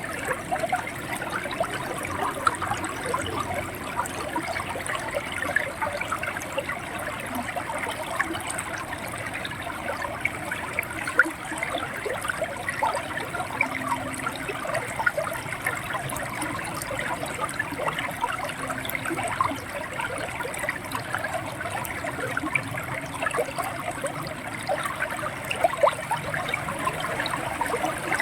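River water running over stones, a steady rushing and gurgling with many small splashes throughout.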